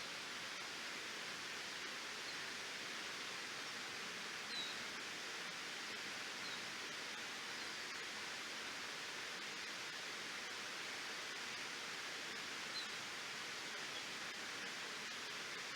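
Waterfall rushing steadily, a constant hiss of falling water. A few short, high chirps come through it now and then.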